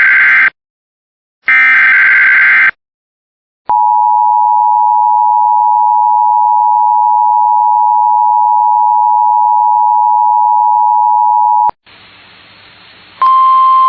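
Emergency Alert System tones: the last two bursts of the SAME digital header's warbling data tones, then the eight-second two-tone attention signal (853 and 960 Hz together) as one steady shrill tone that cuts off abruptly. After a brief faint hiss, another steady beep starts near the end.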